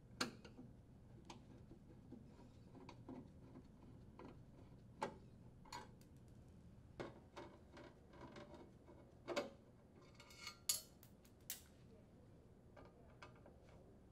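Faint, scattered metallic clicks and ticks of a long Phillips screwdriver working screws out of a sheet-metal junction box, with a few sharper clicks about two-thirds of the way through.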